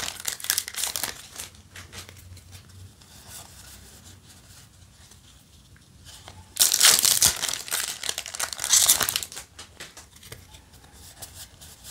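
Foil wrapper of a Yu-Gi-Oh! booster pack crinkling as it is torn open and handled: a loud burst at the start and another lasting about three seconds from around six and a half seconds in, with softer rustling of the cards in between.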